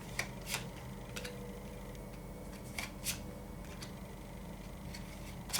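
Tarot cards being handled: a few scattered soft taps and flicks of card on card and table.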